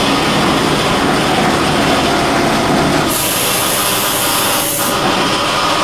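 Robotic milking machine's teat-cleaning brushes running with a steady mechanical whir. A high hiss comes in about three seconds in and stops just under two seconds later.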